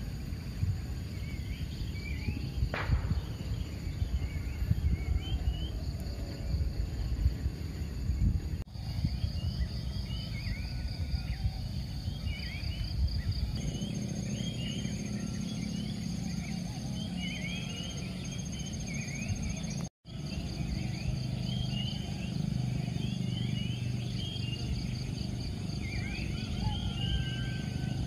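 Dawn chorus of many small birds chirping over a steady, rapidly pulsing insect trill, with a low rumble underneath. The sound drops out for an instant about two-thirds of the way through.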